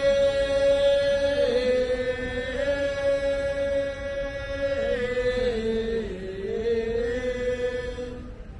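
A single voice chanting a Thai royal barge song (he ruea), drawing out one long note. The pitch steps down slightly a couple of times, dips and rises again past the middle, and the note ends shortly before the end.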